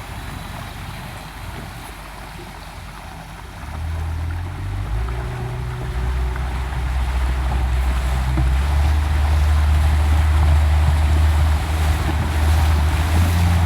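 Motorboat engine running under way, with water rushing along the hull and wind on the microphone. The low engine hum gets louder about four seconds in and again a few seconds later, as the boat speeds up.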